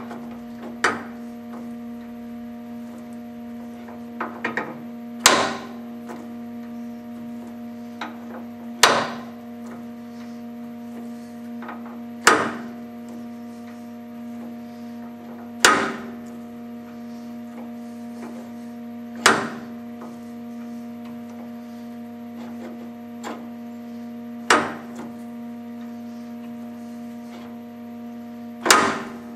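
Sharp metallic clacks, eight in all, about every three and a half seconds, as a Multifix quick-change toolpost is clamped and its tool holder worked by hand. A steady electrical hum runs underneath.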